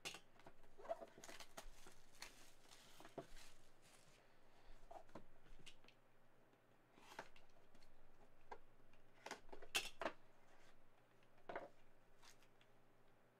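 Faint crinkling and rustling of plastic shrink wrap being cut and pulled off a cardboard trading-card box, with scattered light clicks and taps as the box is handled and its lid opened.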